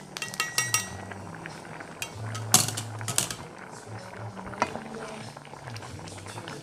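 Metal ladle clinking against a steel mesh strainer as hot broth is poured through it into the pan. Then a square-ended wooden spatula stirs the wet risotto in the stainless steel pan, with a few sharp knocks against the pan.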